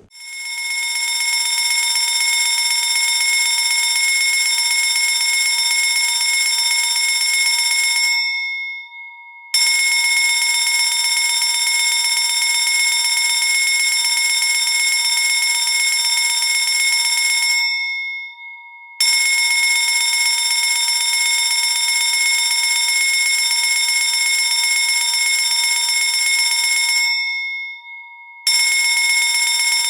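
Fire alarm bell ringing loudly in long bursts of about eight seconds. Each burst starts abruptly and dies away at its end, with three short breaks of about a second between bursts.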